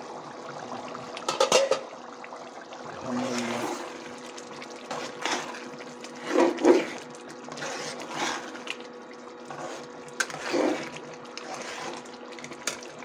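Metal ladle stirring thick, simmering minced beef in an aluminium pot: repeated bursts of wet scraping and sloshing, with clinks of the ladle against the pot, over a steady hum from the induction cooktop.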